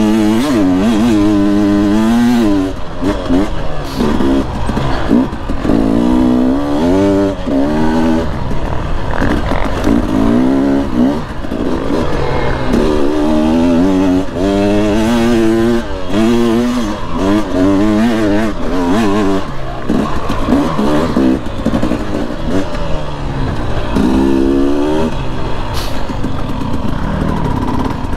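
KTM dirt bike engine revving up and down over and over under the rider's throttle, the pitch rising and falling every second or two.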